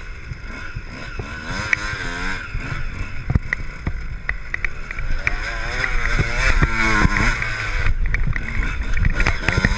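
Suzuki RM125 two-stroke dirt bike engine, whose revs rise and fall repeatedly while riding, under a constant low rumble with scattered sharp knocks.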